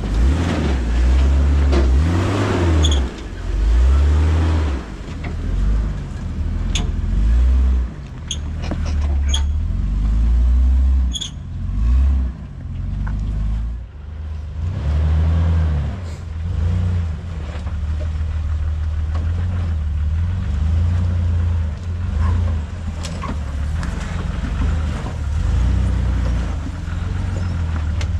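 Jeep Wrangler engine revving up and down again and again in short pushes as it crawls through an off-road obstacle. A few sharp clicks and knocks come through, at about 7, 8 to 9, 11, 16 and 23 seconds in.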